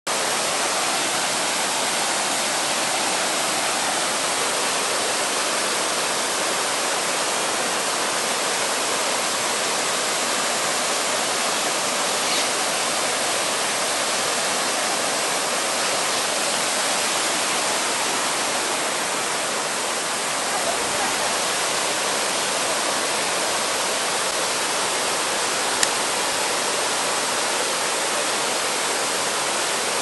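Small waterfalls in a rocky mountain stream, water pouring and splashing over the rocks in a steady, even rush. There is a single sharp click shortly before the end.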